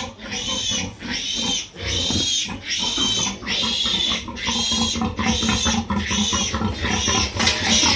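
A pig squealing over and over in high, shrill cries, about two a second.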